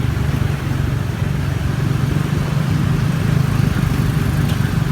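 Steady low drone of a running vehicle engine, unbroken throughout.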